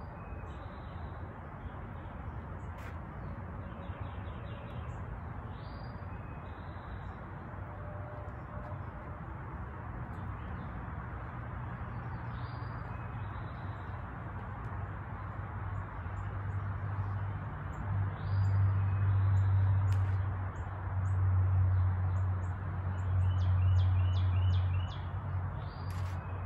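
Birds chirping with short calls scattered throughout over a steady outdoor hiss. In the second half a low rumble swells up and becomes the loudest sound, peaking in three surges near the end.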